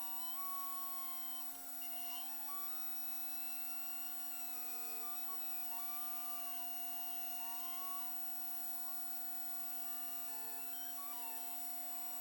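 Custom-built 5-axis CNC machine running a program on a two-stroke cylinder sleeve: a steady spindle hum under an axis-motor whine that keeps stepping and gliding up and down in pitch as the axes change speed and direction.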